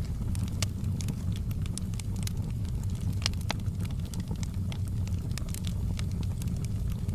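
Wood fire burning in a fireplace: logs crackling and popping in scattered sharp snaps over a steady low rumble of the flames.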